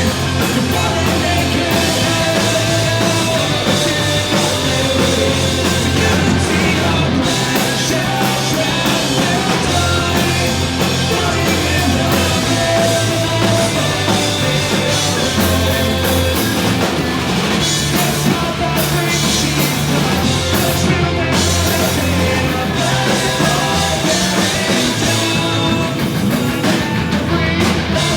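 A rock band playing live, loud and steady, with a drum kit and electric band instruments in a punk-rock vein.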